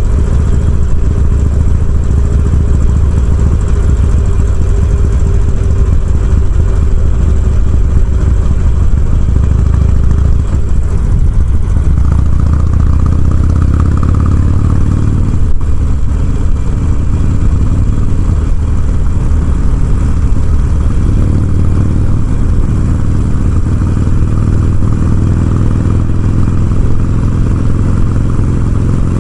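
Harley-Davidson Sportster's V-twin engine running steadily and loud, the bike under way.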